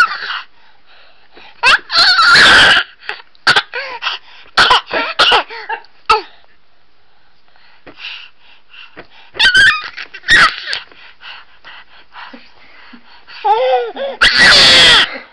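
Infant screaming and squealing in short, high-pitched bursts of excited play, not distress. A long, very loud scream comes about two seconds in and another near the end, with shorter squeals between them and a quieter pause in the middle.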